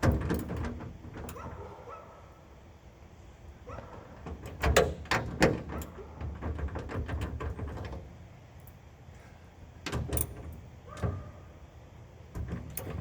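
Metal clunks and sharp knocks from work on a pickup's tailgate latch: a knock at the start, a cluster of clunks about five seconds in and more about ten seconds in.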